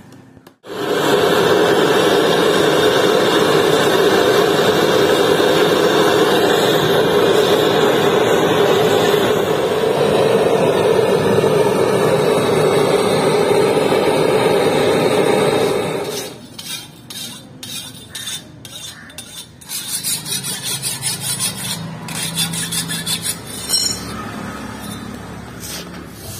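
Handheld gas blowtorch burning loudly and steadily as it heats a steel blade cut from an old handsaw, the heating before a water quench. It starts within the first second and cuts off suddenly about sixteen seconds in, leaving lighter knocks and clatter of metal being handled.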